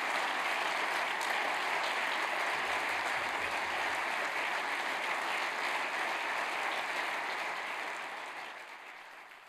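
Audience applauding; the applause fades away in the last second or two.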